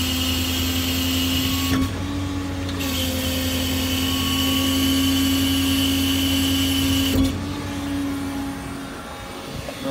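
Hydraulic outrigger on a service-truck crane body extending down under hydraulic power: a steady mechanical hum and whine. It changes with a click about two seconds in and stops with a clunk about seven seconds in, leaving a quieter background.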